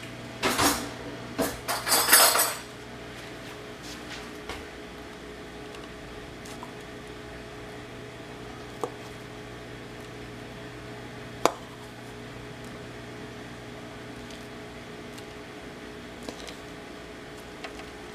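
Metal cutlery clattering for about two seconds as a spoon is fetched, then a steady dishwasher hum. Over the hum, a few light clicks of the metal spoon as whipped cream is spooned onto the cakes, the sharpest one about eleven seconds in.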